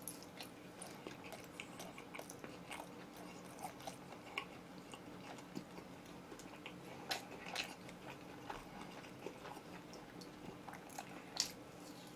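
A man chewing and biting oven-roasted chicken, close to the microphone: faint, irregular mouth clicks and smacks, with a few sharper bites about 7 and 11 seconds in.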